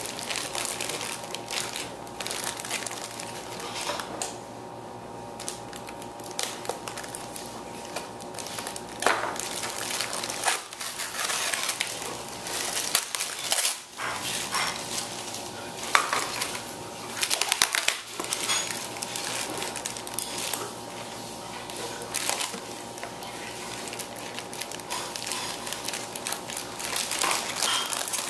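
Plastic toy parts and packaging being handled: irregular clicks, clatters and crinkling, over a faint steady hum.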